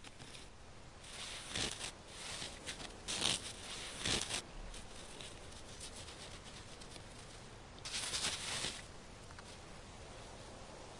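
Red fox's paws crunching on snow as it walks, a few irregular soft crunches, with a longer run of them about eight seconds in.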